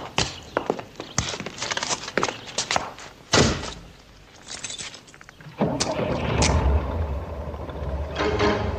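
Footsteps on pavement, then a car door slammed shut about three and a half seconds in. A couple of seconds later a low engine rumble starts and keeps running, and music comes in near the end.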